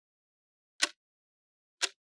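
Clock ticking once a second: two short, sharp ticks.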